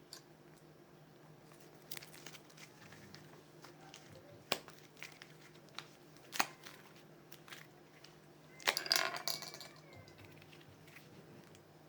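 Light handling sounds: a few scattered clicks and taps of small objects being picked up and set down, and a brief crinkling rustle near the end, over a faint steady hum.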